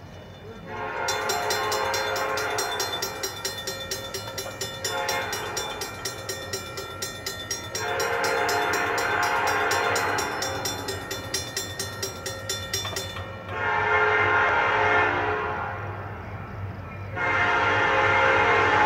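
Grade-crossing warning bell ringing rapidly while an approaching train's locomotive horn sounds the crossing signal. There are two long blasts, a shorter third one, and a fourth long one just starting. The bell falls silent about two-thirds of the way through, once the gates are down.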